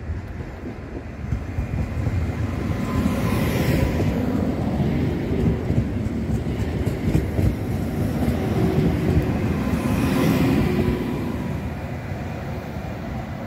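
Koleje Dolnośląskie Newag Impuls 31WE electric multiple unit running past along the platform, its wheels rumbling on the rails. The rumble swells over the first few seconds, holds loud through the middle, then fades as the train pulls away.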